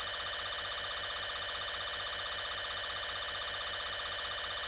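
Steady electronic alarm tone with a fast, even pulsing, the background tone of an emergency alert broadcast.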